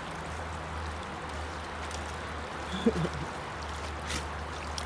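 River water flowing steadily. There is a brief pitched sound about three seconds in and a few faint clicks near the end.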